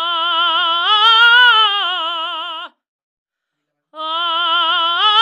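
A woman singing a wordless held note with strong vibrato, rising in pitch about a second in and falling back, for one phrase of nearly three seconds. After a short gap the same sung phrase starts again.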